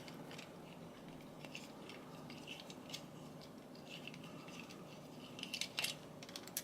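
Faint small metallic clicks and scrapes of a 7/64 Allen wrench turning the retaining screw out of a Master Lock 6835 padlock body, with a few sharper clicks near the end.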